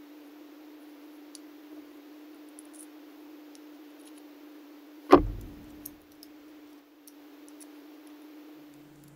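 Faint small metal clicks and ticks as the aluminium parts of a homemade pocket fishing reel are handled and fitted together, over a steady low hum. About five seconds in comes one loud thump.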